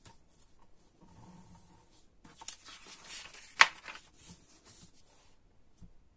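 Sheet of paper rustling as it is creased flat along a fold and then opened out, with one sharp snap of the paper about three and a half seconds in.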